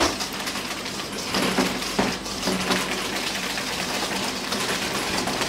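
Wire whisk beating a butter, sugar and egg mixture in a stainless steel bowl: rapid, continuous scraping and clinking of the whisk wires against the metal bowl.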